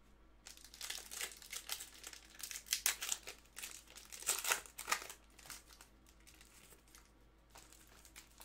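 Foil wrapper of a baseball card pack crinkling and being torn open by hand: a run of sharp crackles for about four seconds, then quieter rustling as the cards are pulled out.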